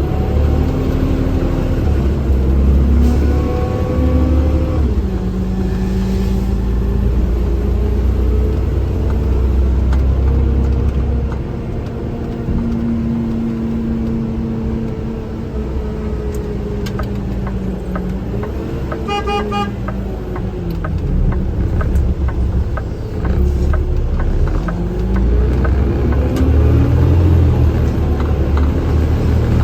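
Engine and road noise of a vehicle being driven, the engine's pitch slowly rising and falling as its speed changes. A short, high, pulsed beeping tone sounds about nineteen seconds in.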